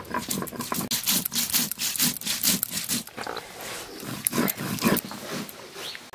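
Stone roller scraping back and forth over a flat grinding stone (sil-batta), crushing whole garam masala spices in a rapid run of gritty strokes.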